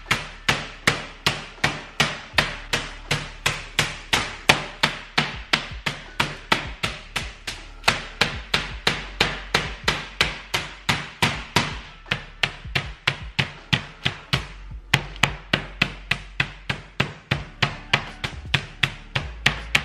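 Meat mallet pounding boneless chicken through baking paper on a countertop to flatten it thin: a steady run of rapid blows, about two or three a second, with a short break about three-quarters of the way through.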